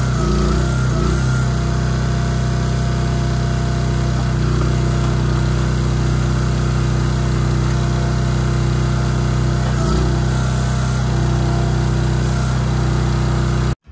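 Wolfe Ridge four-way log splitter's small engine running steadily, driving its hydraulic pump; the note shifts slightly every few seconds as the splitter works under load. The sound cuts off suddenly at the very end.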